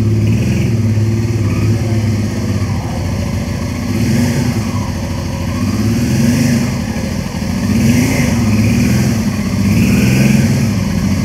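Honda Transalp's V-twin engine running at low speed, the throttle opened and closed a few times so the engine note rises and falls.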